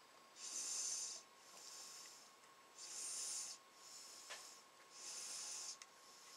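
A man's steady breathing close to the microphone: regular hissing breaths, louder and softer ones in turn, about a full breath every two and a half seconds.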